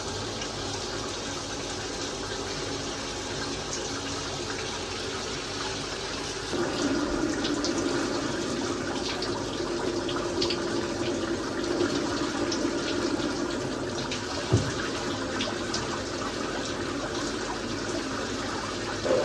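Water running steadily from a tap, getting louder about six seconds in, with a single knock about three-quarters of the way through.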